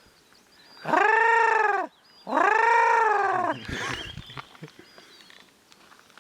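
A man's voice making long, drawn-out calls in imitation of a bird, twice, each rising then falling in pitch. Faint small-bird chirps sound between the calls.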